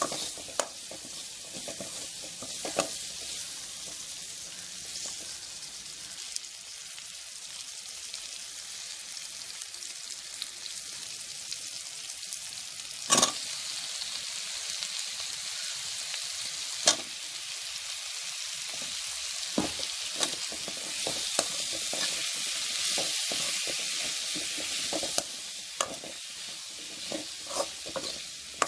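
Shallots, tomato and brinjal sizzling in oil in a metal pan, stirred with a metal spatula. The hiss is steady and grows a little stronger in the second half, broken by several sharp clicks and knocks of the spatula against the pan.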